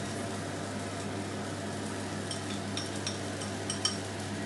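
Tomatoes frying in a pan with a faint sizzle over a steady low hum. A little past halfway, a quick run of about eight light, ringing clinks of a spoon against a small bowl of egg.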